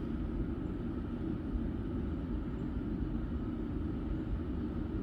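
Steady low rumbling noise with no engine running, the Yukon's ignition only switched to on.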